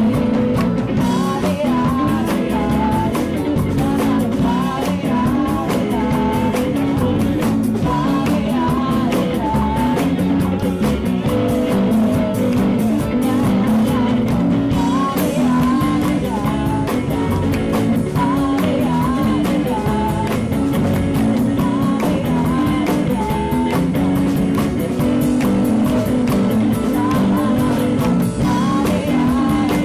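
Live rock band playing: a woman singing the lead over electric guitar, electric bass, keyboard and drum kit.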